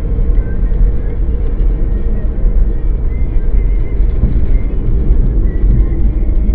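Car driving, heard from inside the cabin through a dashboard camera: a steady low rumble of road and engine noise.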